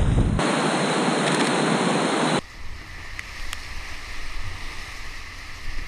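Whitewater rapids of a high-water glacial river rushing loudly past a kayak. About two and a half seconds in, the sound drops abruptly to a quieter, steady rush of river water.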